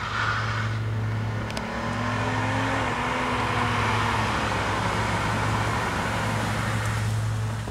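Chevrolet Monte Carlo coupe driving up toward the microphone, its engine and tyre noise growing louder as it nears, with the engine pitch rising and then falling between about two and four seconds in, over a steady low hum.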